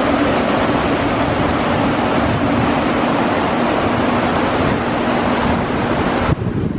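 Strong wind rushing steadily and buffeting the microphone, with a faint steady low hum underneath. The sound changes abruptly near the end.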